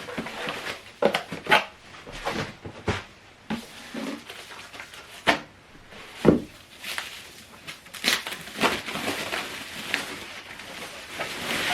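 Handling noise from unpacking: irregular knocks and taps on hard plastic with short bursts of crinkling packaging, and one louder knock about six seconds in.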